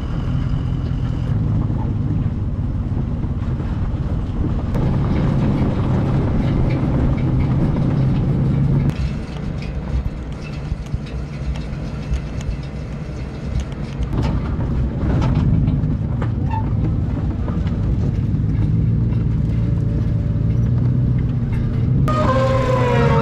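Pickup truck driving slowly, with a low engine hum, road noise and knocks, heard from the wrecked Yamaha R3 being hauled behind it. A wavering high squeal starts near the end.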